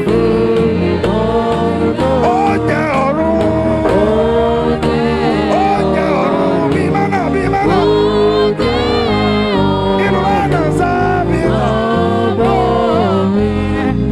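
Gospel worship music: a singing voice sliding between held notes over continuous instrumental backing.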